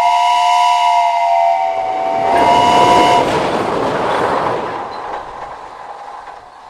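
An S8 tram-train sounds its two-tone horn twice, a blast of about two seconds followed at once by a shorter one, over the noise of the train running. The running noise then fades away.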